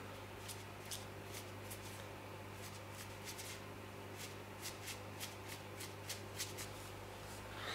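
Ink brush flicked and dabbed against paper in quick, irregular short scratchy strokes, about two or three a second, over a steady low hum.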